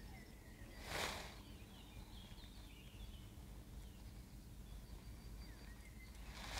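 Faint birdsong, short chirps and trills, over a low steady outdoor rumble, with two brief rushes of noise, one about a second in and one at the end.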